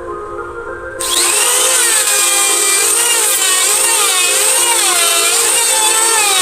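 A power tool starts cutting wood about a second in, loud, its pitch dipping and rising again and again as the load on the cut changes, over background music.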